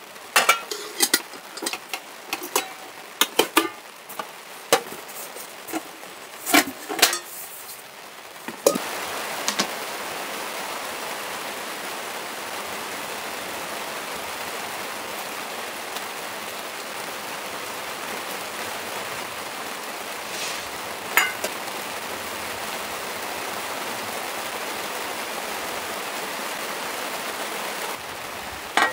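Metal pans and lids clattering and knocking as they are lifted out of a hard cookware case for about the first eight seconds. Then a steady hiss of rain falling on the tent, with a few light knocks about two-thirds of the way through.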